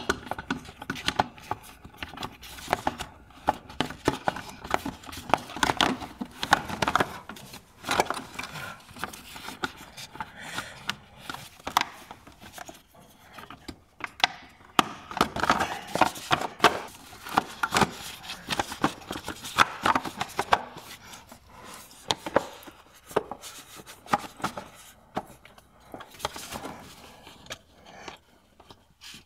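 Irregular clicks, knocks and scrapes of hand tools and parts as a cover is fitted to the engine and its bolt screwed in.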